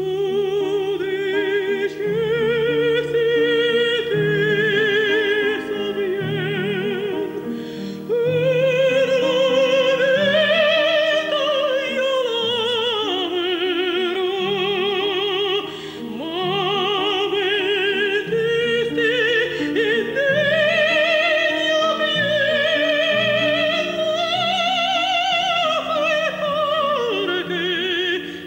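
A woman singing in operatic style with wide vibrato, holding long high notes that rise and fall, over sustained instrumental chords.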